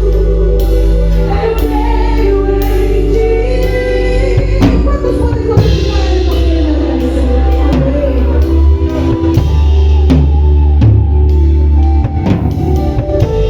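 Music: singing over a drum kit, with steady drum hits and sustained low notes underneath.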